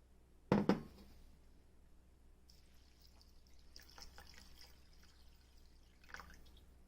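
Basmati rice being washed in water: water pouring and swishing with small grainy clicks. There is a sharp double knock about half a second in and a lighter knock near the end.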